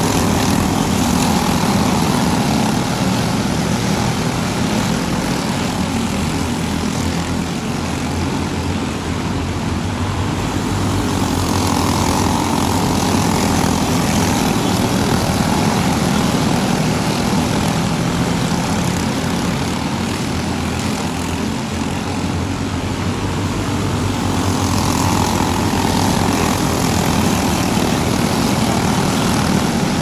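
A pack of boxstock racing go-karts' small engines running around the track, a steady buzzing drone that swells each time the pack comes by, about every twelve seconds.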